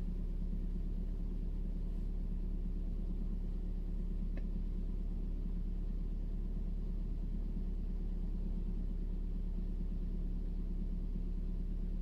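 Steady low mechanical rumble with a constant hum, unchanging throughout, and a faint tick about four seconds in.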